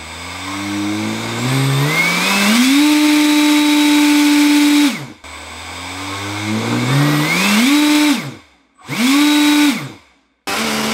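Brushless motor spinning a 3D-printed PLA ducted-fan blade to about 50,000 RPM, a high-speed stress test. It spins up with a whine rising steeply in pitch, holds a steady high whine for a couple of seconds, then cuts off. It spins up again, gives a short rising-and-falling burst, and settles into another steady whine near the end.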